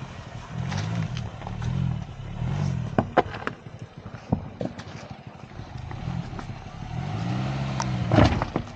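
Honda Amaze sedan's engine revving up and falling back in repeated swells as it crawls over a rocky track, with sharp knocks and clatter of stones under the tyres and one louder knock near the end.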